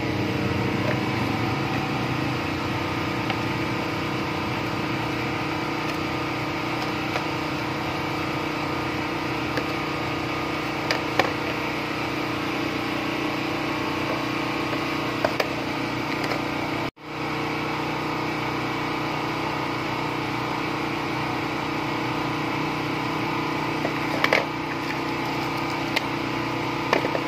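Steady mechanical hum of a running motor, even in pitch and level, with a few faint clicks and knocks from handling. It cuts out for a moment about two-thirds of the way through.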